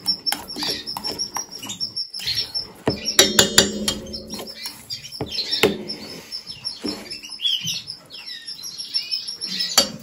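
Canaries chirping and twittering. A quick run of sharp clicks comes about three seconds in.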